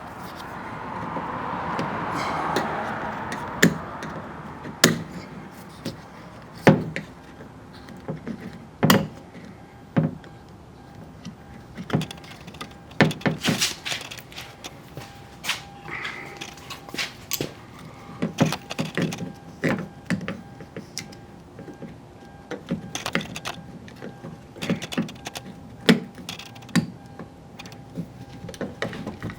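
Irregular clicks and knocks from hands working plastic and metal parts of a car door's exterior handle assembly, pushing pieces into place. A swell of hiss rises and fades in the first few seconds.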